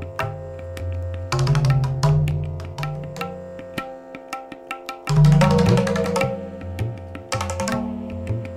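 Indian classical music led by a hand drum struck in quick strokes over a steady held drone, with deep drum notes that slide in pitch. It is loudest about five seconds in.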